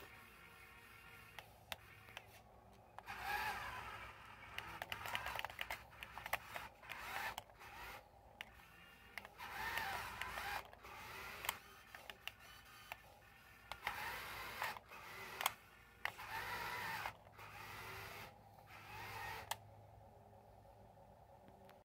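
Electric motor and gearbox of a radio-controlled CAT toy construction vehicle whining in repeated bursts of a second or two as it is driven, the pitch wavering with throttle, with scattered sharp clicks in between.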